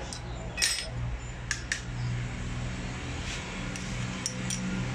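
Small metal parts of a diesel injection pump clicking and clinking as its levers are handled and fitted, a few sharp clicks with the loudest about half a second in. A steady low hum runs underneath.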